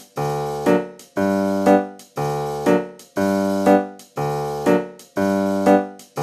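Background music: a keyboard or piano plays the same chord pattern over and over, about one chord a second, each chord struck, held and fading, with a short extra note just before the next.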